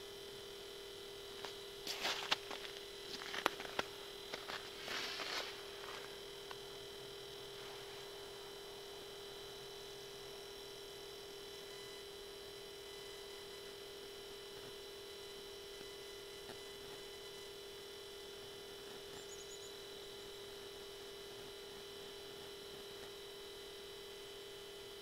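Steady electrical hum of a few fixed tones, with a cluster of short clicks and rustling from about two to six seconds in.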